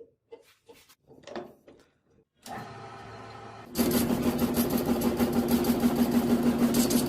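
A few light clicks and taps, then an electric power tool starts up about two and a half seconds in and runs with a steady hum, getting louder about a second later.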